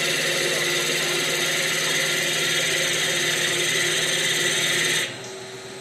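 Vertical CNC wood lathe turning a wooden workpiece, a loud steady machine whine with cutting noise. About five seconds in it drops suddenly to a quieter steady hum.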